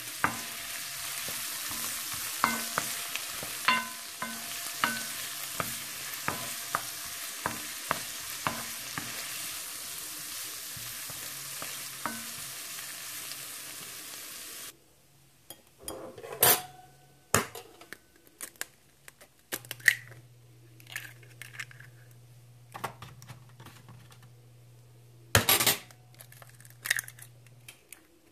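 Sliced onions and green peppers sizzling in a nonstick skillet while a wooden spoon stirs them, tapping and scraping against the pan in a regular rhythm. The sizzle cuts off suddenly about halfway, giving way to scattered knocks and clicks and eggs being cracked into a bowl near the end.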